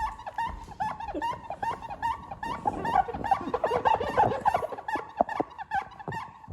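Rapid high-pitched squeaking, several short squeaks a second without a break.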